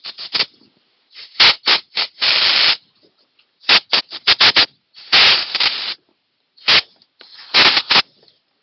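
Scratchy cleaning strokes in short quick groups, with a couple of longer hissing stretches, as crud is worked out of the threaded bolt holes in the excavator's final drive hub.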